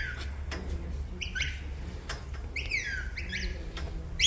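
Shepherd's whistle commands to a working border collie: short, sharp whistled calls that sweep up and then fall in pitch, three groups about a second apart, the middle one a quick run of falling notes.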